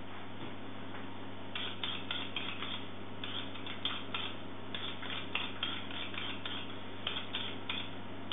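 Knife peeling a raw potato: short scraping strokes, a few a second, starting about a second and a half in. A low steady hum runs underneath.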